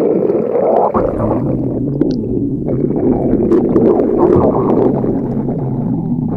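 Loud, continuous stomach growling from a hungry stomach: long gurgling rumbles, with a low steady drone joining about a second in.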